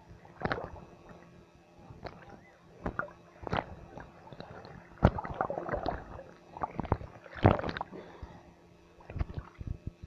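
Sea water splashing and sloshing against a phone held at the surface by a swimmer, in irregular bursts with a few sharp slaps, the loudest about halfway and about three quarters through.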